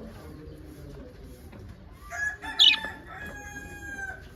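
A rooster crowing once: a long held call that starts about halfway through, with a short sharp high note near its start.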